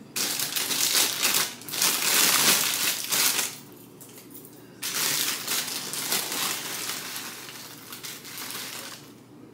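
Plastic food bag crinkling and rustling as it is handled, in two spells: about three and a half seconds, then a short pause, then about four seconds more.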